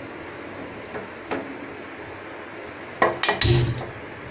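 Steel kadhai holding water being set on a gas stove: a faint click about a second in, then a cluster of metal clanks and a dull knock about three seconds in.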